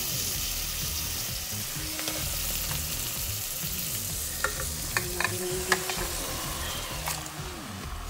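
Marinated chicken pieces sizzling and frying as they go into a hot pot of sautéed onions and spices, with a few sharp taps against the pot a little past halfway.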